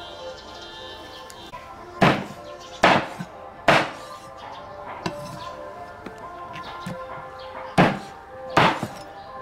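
Cleaver chopping a raw chicken on a round wooden chopping block: three heavy chops about a second apart starting about two seconds in, then two more near the end.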